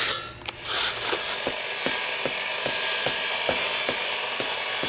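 A power tool running steadily from about a second in: a high hiss with a regular tick about two to three times a second.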